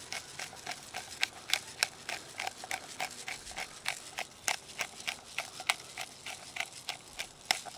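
Pepper mill being twisted by hand, grinding peppercorns: an uneven run of short clicks, several a second.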